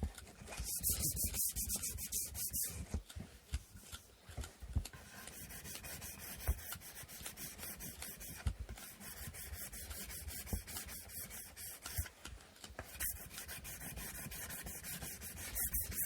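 Sandpaper rubbed back and forth by hand over wooden inkle-loom parts in quick, even strokes. The strokes are louder for the first couple of seconds and again near the end, and softer and less regular in between.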